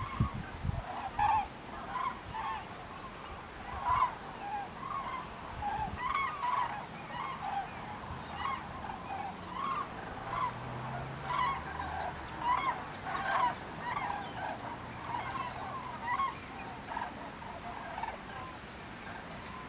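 A migrating flock of common cranes calling in flight: many overlapping trumpeting calls, a few each second, thinning out near the end.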